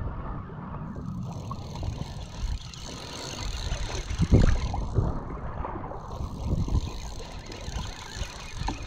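Water sloshing and slapping against a plastic kayak hull on a choppy sea, heard as an uneven low rumble on the microphone. There is a louder knock about four seconds in.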